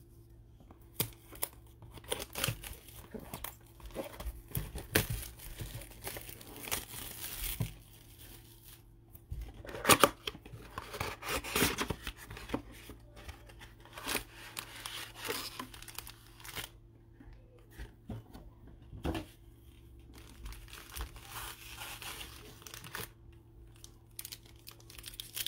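Plastic shrink wrap being torn off a trading-card box with crinkling, then the cardboard box lid opened and foil card packs handled, in scattered rustles and taps, the loudest about ten seconds in. A faint steady hum runs underneath.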